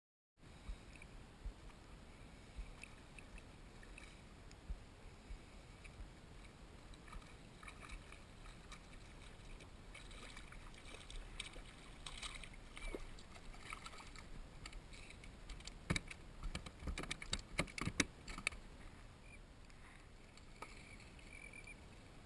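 Faint steady wash of water around a plastic kayak hull, with scattered small knocks. A hooked fish splashes at the surface beside the kayak, most loudly in a burst of sharp splashes and knocks about 16 to 18 seconds in.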